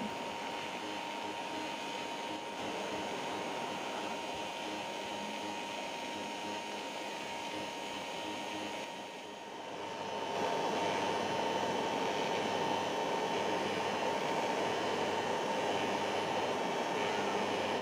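Electric blower forcing air into a charcoal forge fire, a steady rush of air with a constant high whine. It dips briefly about nine seconds in, then runs louder as the fire flares up.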